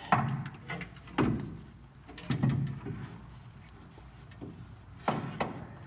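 Starter motor being worked up into place by hand under a truck: its metal body knocks and scrapes against the surrounding metal in a few separate clunks, two of them close together near the end.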